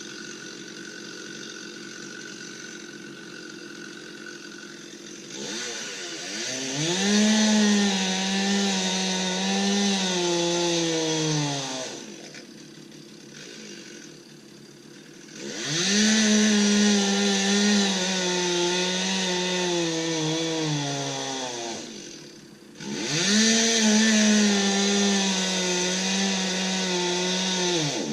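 Two-stroke chainsaw revved to full throttle three times, held for several seconds each time as in cutting wood, and dropping back to idle between.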